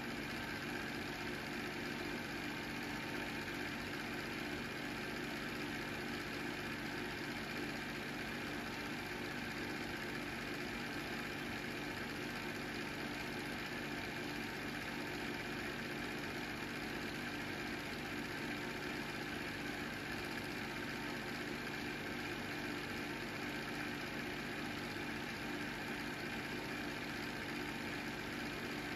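Film projector running: a steady mechanical whir and hum that does not change.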